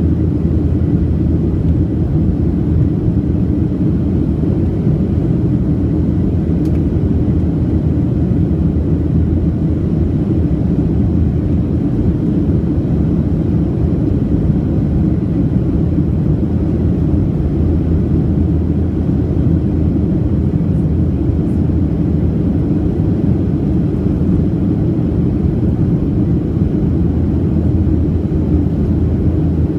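Steady low rumble of a Boeing 737-700's CFM56-7B jet engines and airflow, heard inside the passenger cabin.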